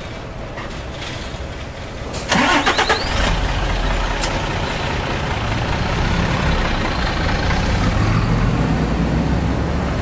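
City bus engine starting: a short rattling crank about two seconds in, then the engine catches and runs with a steady low rumble that swells slightly.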